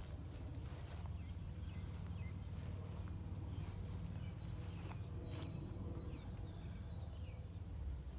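Small birds chirping faintly with many short, scattered calls over a steady low rumble.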